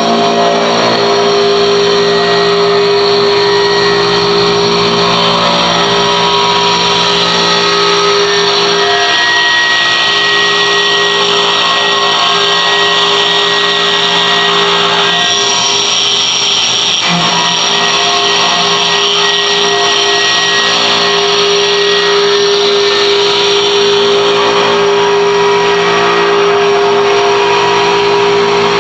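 CNC roller engraving machine running steadily: a loud motor and spindle whine with several held tones over a mechanical hiss. The pitch pattern shifts about halfway through.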